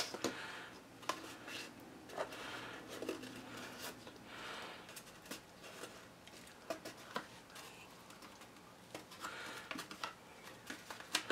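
Cut paper pieces being handled, folded and pressed down by hand: soft rustling with scattered light clicks and taps.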